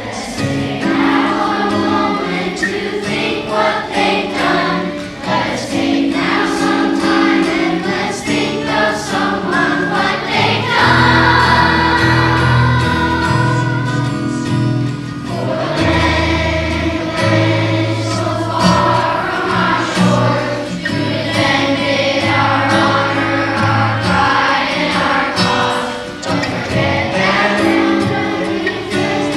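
A children's choir singing a patriotic song together over instrumental accompaniment.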